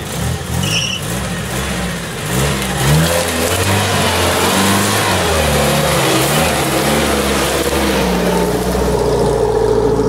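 UAZ-469 off-roader's engine revving up and down under load as it climbs out of a leafy gully, getting louder as it comes close about three seconds in, then holding a steadier higher pitch near the end.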